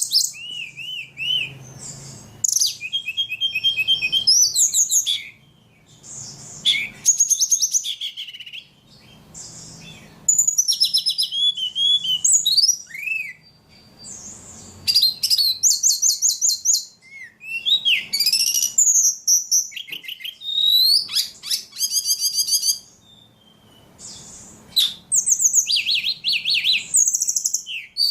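Caged ledekan songbird singing actively: bursts of rapid chirps, trills and rising and falling whistles, phrase after phrase with short pauses between them.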